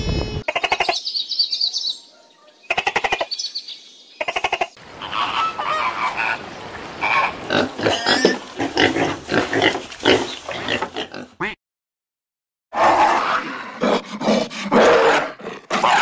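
A string of separate animal calls edited together. First come short, harsh, pulsing calls from koalas, then pigs grunting and squealing in short irregular bursts through the middle. After about a second of silence, a different animal gives loud, rough calls near the end.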